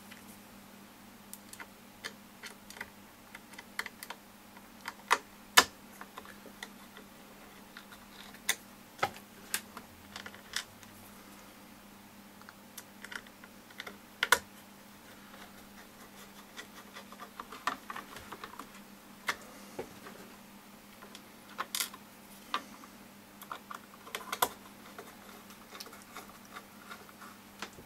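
Scattered light clicks and taps of small screws being placed by hand and driven with a small screwdriver into the plastic base molding of a Bose SoundDock Series II speaker.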